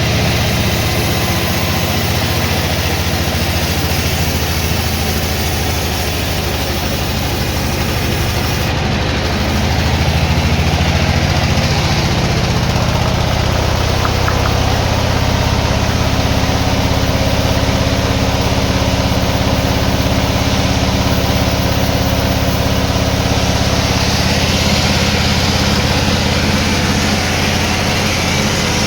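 Sawmill machinery running steadily: an engine-driven drone with a dense mechanical hiss, swelling slightly about a third of the way in.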